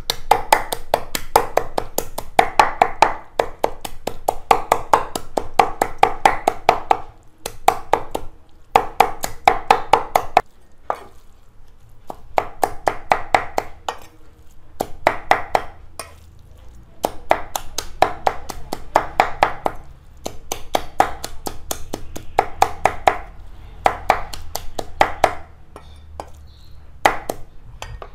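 Cleaver chopping raw frog meat, bones and all, on a thick round wooden chopping block: fast runs of sharp chops, several a second, broken by short pauses, as the frog is minced fine.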